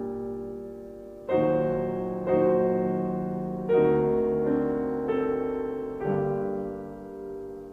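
Piano accompaniment playing a slow instrumental interlude between sung verses: full chords struck about once a second and left to ring and fade.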